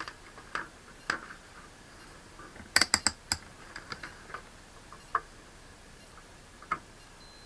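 Multimeter probe tips tapping and scraping on the pins and pads of a circuit board while hunting for a ground connection: scattered sharp clicks, with a quick cluster of four or five about three seconds in.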